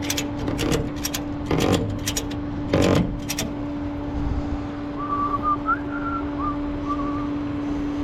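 Ratchet tie-down strap being cranked tight, a handful of sharp ratchet clacks over about the first three and a half seconds. Under it runs the steady hum of the tow truck running. Faint chirps come about five to seven seconds in.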